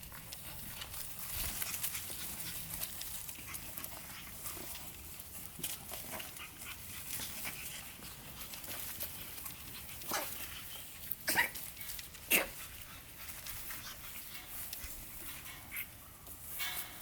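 Pug puppies making small noises as they move about, with three short, sharp sounds a little past the middle.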